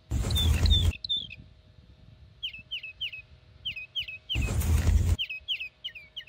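Two short, loud rustling scrapes, under a second each, one near the start and one about four and a half seconds in, as small wooden crates are lifted off a plastic toy truck bed. Small birds chirp over and over in the background.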